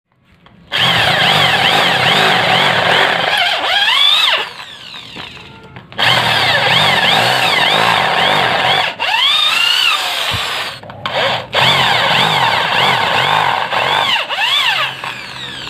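INGCO ID6808 13 mm corded electric drill running in three main bursts with short pauses between, a 10 mm twist bit cutting into steel angle. A wavering high whine rises and falls as the bit bites, from a bit that may be dull.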